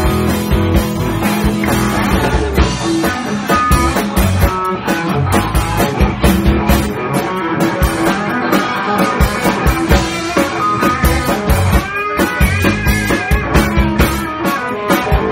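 Live band playing bluesy rock: electric and acoustic guitars over bass and drum kit, with a guitar line bending notes near the end.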